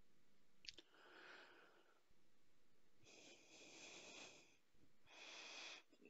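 Near silence, broken by a faint click and three soft breath-like hisses, the longest about a second and a half.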